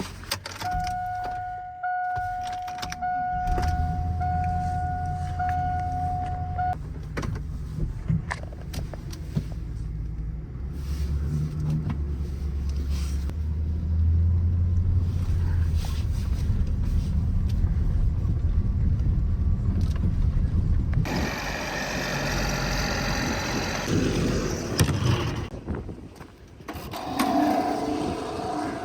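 A vehicle's warning chime beeps about five times. An engine runs with a steady low rumble, and about 21 seconds in gusty wind noise takes over.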